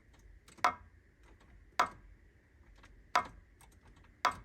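Mk3 Toyota Supra starter giving single sharp clicks as the key is turned to start, four times about a second apart, with no cranking. This is the classic clicking no-start, very likely from the 10-amp factory starter relay being overworked by a solenoid that draws a little over 10 amps.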